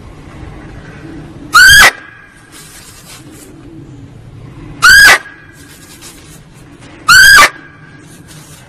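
Barking deer (muntjac) calls used as a hunting lure: three short, loud, high-pitched barks, two to three seconds apart. Each bark rises and falls quickly in pitch, and a faint tone lingers briefly after it.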